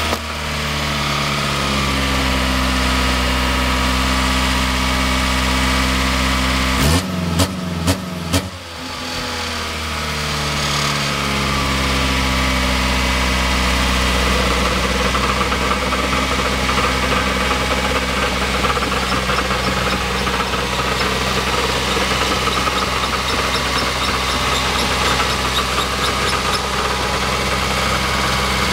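Honda B16A2 1.6-litre DOHC VTEC four-cylinder engine idling steadily on its first start-up, with the rattle noise it is being checked for. A few sharp knocks and a brief dip in the running come about seven to eight seconds in.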